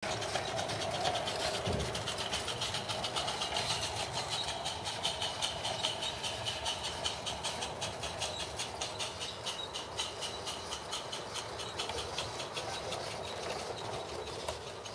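Roundhouse Silver Lady 16mm scale live steam locomotive running with wagons, its exhaust chuffing in a quick, even beat. It grows slowly fainter near the end as it pulls away.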